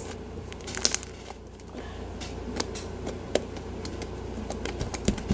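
Fluffy slime with seed beads mixed in being poked and squished by hand, making irregular small pops, clicks and crackles.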